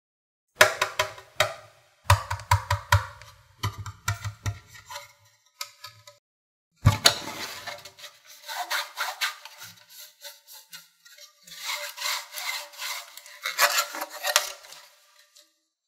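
Hands handling a hard plastic heart-shaped tray and its lid: rapid clicks, taps and scrapes of plastic on plastic as the lid is fitted on and worked off, in two runs with a short silent break about six seconds in.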